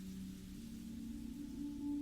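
Ambient relaxation music of sustained singing-bowl-like tones: a low ringing tone fades out as a higher one swells in about halfway through, gaining an upper overtone near the end.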